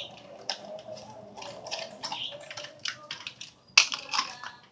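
Irregular light clicks, taps and scuffling from a pit bull puppy playing with a toy, with one sharper click a little before the end.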